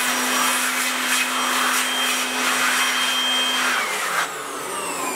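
Handheld electric air blower running steadily, a loud rush of air with a steady motor hum and whine, as it blows loose toner dust off a refilled laser-printer toner cartridge. About four seconds in it cuts off, and its whine falls away as the motor spins down.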